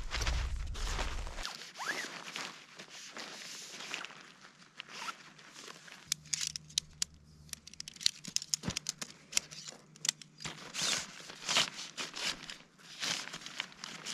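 Hammock gear being handled: fabric rustling and scraping in irregular strokes, with many sharp clicks and snaps.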